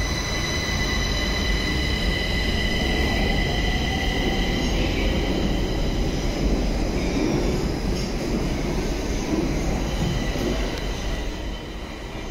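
Stockholm metro train pulling out of the platform and accelerating away: a rumble of wheels on rail under a steady high whine. The whine fades about halfway through, and the sound dies down near the end as the train leaves.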